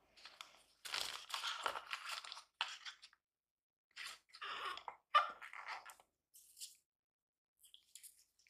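Gloved hands handling a phone's cardboard box, paper inserts and plastic sleeve: irregular bursts of crinkly rustling and scraping, followed by a few smaller clicks near the end as the charger is picked up.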